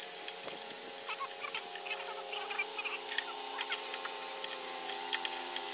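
Metal spanner clicking and squeaking against bolts and washers on a lawnmower's engine mounting, in many short irregular ticks, over a steady low hum.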